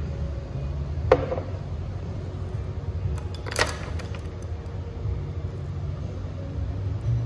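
Low, steady room rumble with two sharp clinks of tableware, one about a second in and a louder one at about three and a half seconds.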